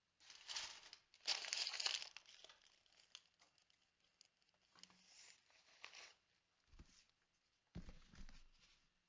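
Faint rustling and crinkling noises in several short bursts, the loudest in the first two seconds, with two soft low thuds near the end.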